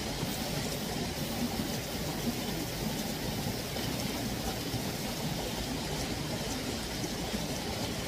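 Steady rushing of a mountain stream flowing over rocks.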